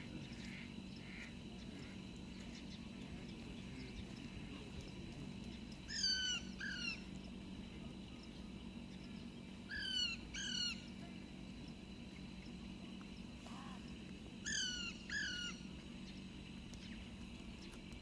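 Rose-ringed parakeets calling: three pairs of short, downward-slurred calls, the pairs about four seconds apart.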